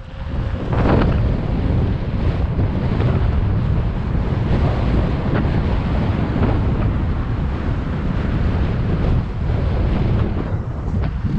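Wind buffeting a GoPro Hero7 Black's microphone during a mountain-bike ride: a loud, steady rumble with scattered short crackles.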